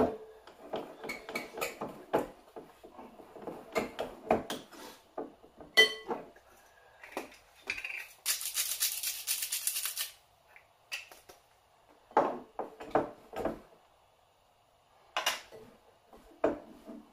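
Irregular clinks, knocks and scrapes of a utensil against a mixing bowl as flour and water are stirred into tortilla dough, with a sharp knock at the start and a ringing clink about six seconds in. A steady hiss lasts about two seconds around the middle.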